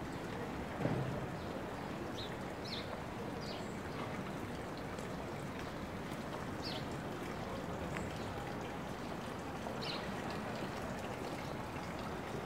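Steady rush of running water, with short high chirps every second or two and a dull thump about a second in.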